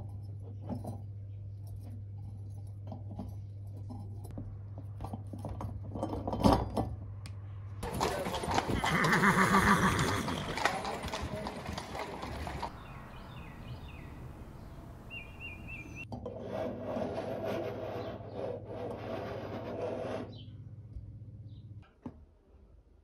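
Light clinks of a small metal chain being handled, then a loud horse neigh about eight seconds in lasting roughly four seconds, and a second horse call a little later. A steady low hum sits underneath until near the end.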